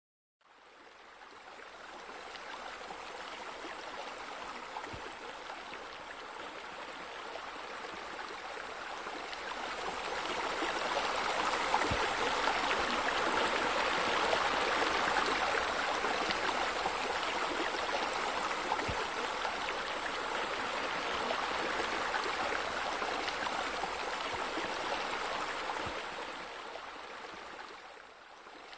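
Steady rush and splash of flowing water from pool water features, a sheer-descent waterfall and bubblers. It fades in at the start, grows louder toward the middle and dips near the end.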